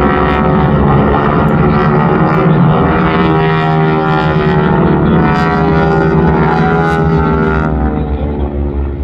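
North American AT-6 Texan's Pratt & Whitney R-1340 radial engine and propeller during an aerobatic manoeuvre. It gives a loud, continuous drone whose pitch slides down and back up as the plane dives and pulls through, easing off slightly near the end.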